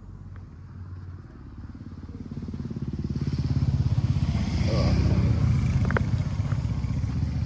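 Motorcycle engine running as it approaches and passes, its low pulsing rumble growing louder about two seconds in and easing off slightly near the end.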